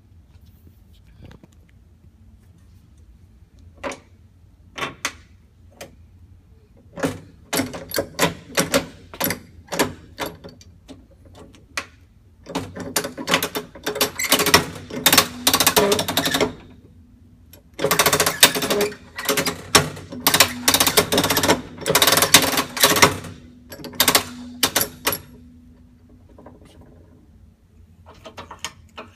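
Brass handle of an old Mitsubishi Electric tram master controller being swung through its notches, giving sharp mechanical clicks. The clicks come singly at first, then in fast runs lasting several seconds at a time.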